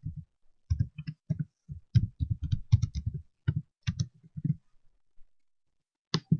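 Typing on a computer keyboard: irregular keystrokes, each a sharp click with a low thump, for about four and a half seconds. After a pause, a mouse button clicks near the end.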